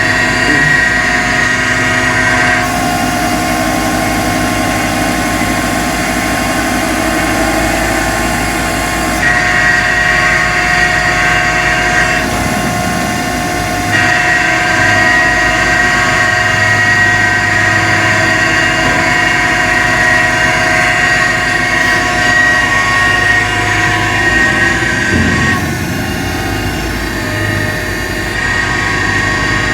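Boom truck's engine and hydraulic crane running steadily with a high whine on top, the tone shifting several times as the boom is worked to swing a load slowly over.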